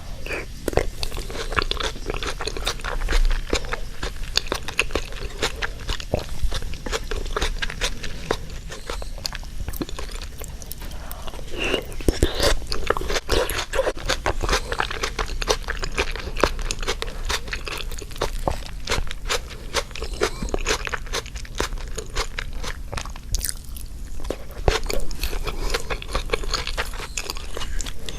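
Close-miked eating: steady chewing and crunching of a meal of mapo tofu, rice and crunchy cucumber pickles, with many small wet clicks and crackles.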